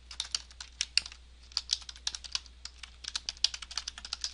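Typing on a computer keyboard: a quick, uneven run of keystrokes with a brief pause about a second in.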